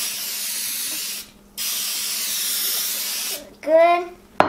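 Aerosol cooking spray hissing into an empty metal baking pan in two long bursts with a short break between. Near the end comes a brief loud rising squeal, then a single sharp knock as the can is set down on the wooden counter.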